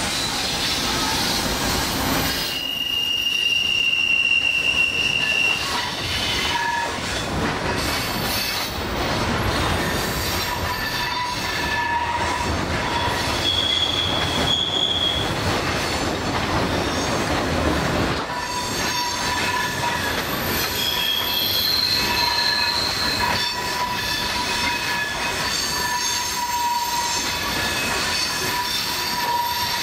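Freight train of loaded flatcars rolling through a curve, its wheel flanges squealing in several steady high tones that come and go over the continuous rumble and clatter of the cars.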